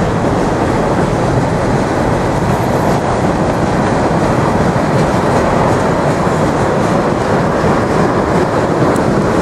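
Freight cars of a manifest train, open coal hoppers and a tank car, rolling past up a grade: a steady noise of steel wheels running on the rails.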